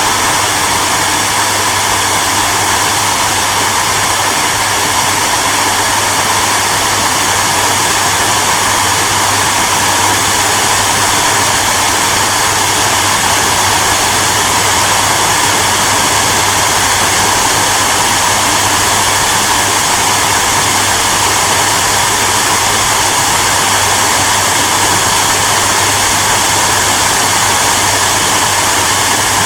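Hair dryer running steadily: an even, loud blowing noise with a low, constant hum underneath.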